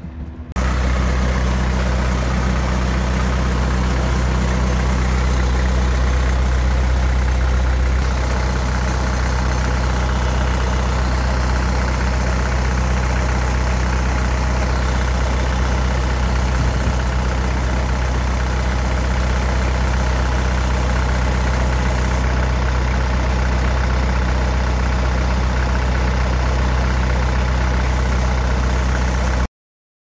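Diesel engine of a 2003 Bobcat 753 skid steer loader idling steadily. It cuts off abruptly near the end.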